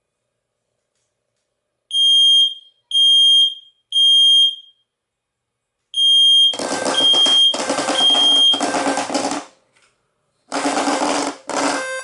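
Smoke alarm sounding on its test button: high-pitched beeps in threes, about a second apart. About six and a half seconds in, a SafeAwake hearing-impaired alarm answers with its low-frequency audible alarm in pulses of about a second each, together with its bed shaker vibrating, while the smoke alarm's beeps continue over it.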